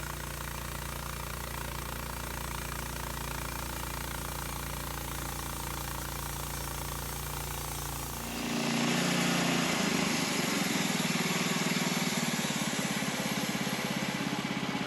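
Engine idling steadily, then running louder about eight seconds in, with an even throbbing pulse.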